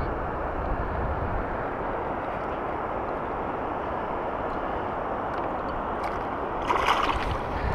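Steady low rushing of wind and river water on the microphone while a hooked bass is played in, with splashing near the end as the fish thrashes at the surface.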